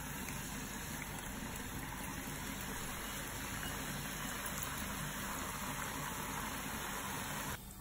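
Hot oil in a kadai sizzling and bubbling steadily as freshly pressed rice-flour murukku dough fries in it. The sizzle cuts off suddenly near the end.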